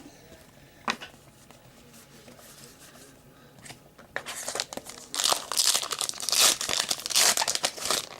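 A trading-card pack wrapper being torn open and crinkled, mostly in the second half, with a single sharp click about a second in.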